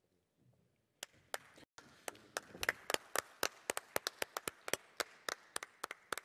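Audience clapping that breaks out suddenly about a second in, separate sharp claps from a fairly small number of people standing out over a softer haze of clapping.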